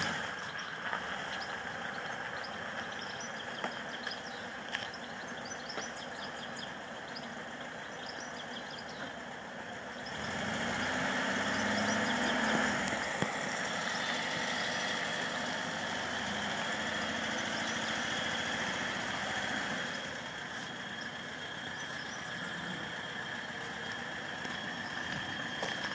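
A vehicle engine running steadily, growing louder and fuller for about ten seconds in the middle.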